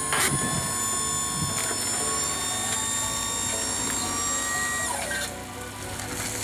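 Mini dump truck raising its tipping bed to unload wood bark mulch: a steady mechanical whine that drops in pitch and stops about five seconds in, as the bark chips slide out of the bed.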